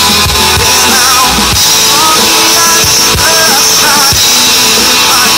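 Live rock band playing loud: a drum kit keeping a steady beat under electric and acoustic guitars, with a melodic line sliding up and down over the top.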